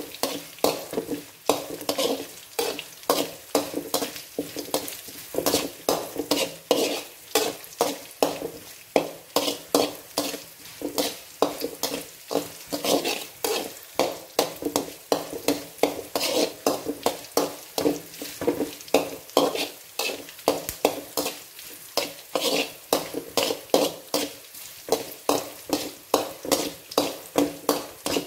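Metal spatula scraping and knocking against a metal kadai in quick repeated strokes, about two to three a second, while ginger-garlic paste, green chillies and curry leaves sizzle in hot oil as they are browned.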